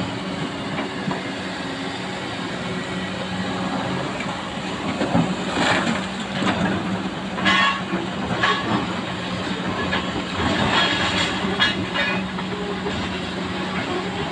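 Excavator's diesel engine running steadily, with repeated metal clanks and squeals of the machine working from about five seconds in.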